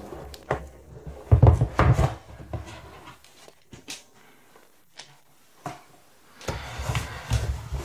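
A cardboard phone box being opened by hand: the lid rubs and lifts off with a few knocks, then scattered taps and cardboard rubbing as the contents are handled.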